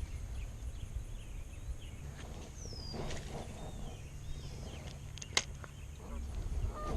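Outdoor ambience with small birds chirping over a low rumble of wind or handling on the microphone. One sharp click comes a little past five seconds in.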